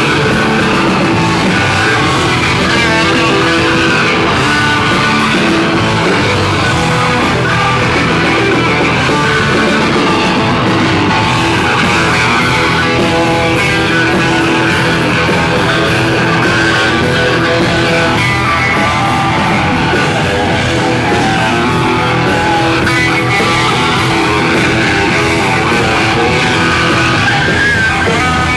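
Hard rock band playing live and loud: distorted electric guitars over bass guitar and drums.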